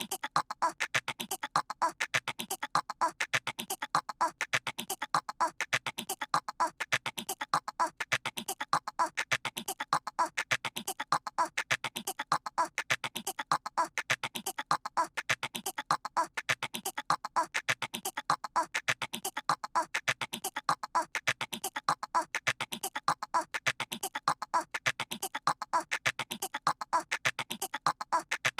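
A child's voice imitating squirrel chatter: rapid, squeaky chirps in a short phrase that repeats over and over as a loop.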